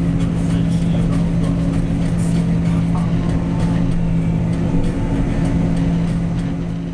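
John Deere 9650 STS combine harvester running under load, heard from inside its cab while it unloads canola through its unloading auger: a steady drone with a strong low hum.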